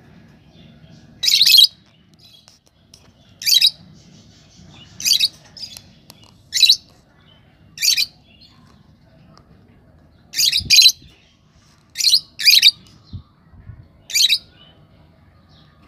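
Lovebirds giving short, shrill chirping calls, about nine bursts a second or two apart, some coming in quick pairs.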